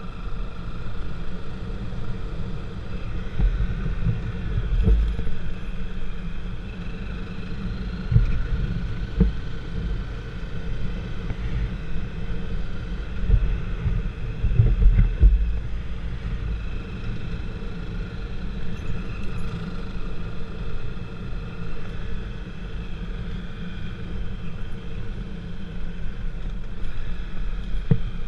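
Vehicle travelling along a road, heard from the vehicle: steady low rumble that swells several times, with wind buffeting the microphone and a faint steady whine above it.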